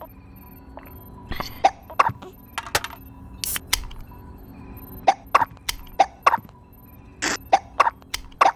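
A person hiccuping again and again, short sharp hiccups. From about five seconds in they come in an even run of about three a second.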